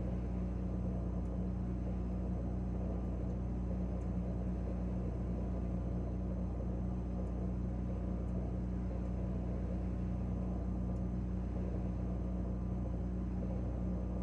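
Refrigerator's compressor and fan running, a steady low hum with a few fixed tones, heard from inside the closed fridge.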